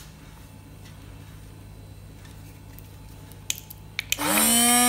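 Two quick clicks of the power button on a portable USB-rechargeable mini blender, then its small 3.6 V DC motor spins up with a rising whine near the end and runs at a steady high pitch, blades turning in the empty cup.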